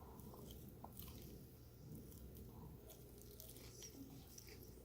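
Faint chewing of a fried, panko-coated Korean corn dog, with scattered soft clicks and no steady sound.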